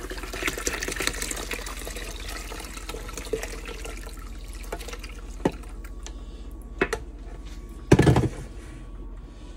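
Water being poured through a fine mesh strainer heaped with soaked rice into a pitcher, splashing strongest in the first few seconds and then thinning. A few light clicks, and a loud thump near the end.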